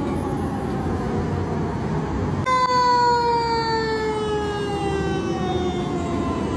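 Fire truck siren wailing over the rumble of the truck's engine and traffic. About two and a half seconds in, a louder wail starts suddenly and slowly falls in pitch.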